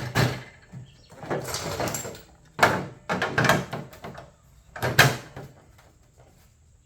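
Sheet-metal hood patch panel being handled and fitted into the hood: a few sharp metal knocks with scraping in between.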